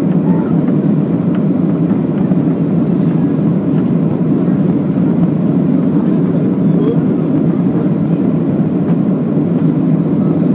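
Jet airliner's engines and airflow heard from inside the passenger cabin during the climb after takeoff: a steady, even low rumble.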